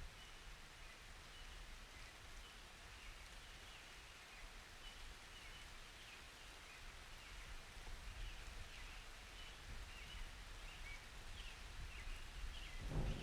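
Soft, steady hiss of light summer rain with scattered small bird chirps. Near the end, a low rumble of thunder starts to build.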